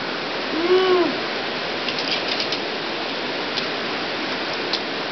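Steady rush of river water through the canyon pool. About a second in, a short voice call rises and falls in pitch. A few light clicks follow later.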